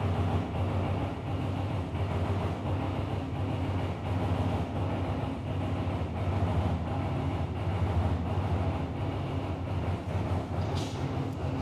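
A steady low machine hum, even and unbroken, with a brief high hiss near the end.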